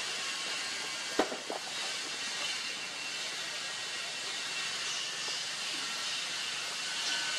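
Steady high hiss of outdoor background noise, with one sharp click a little over a second in and a fainter click just after it.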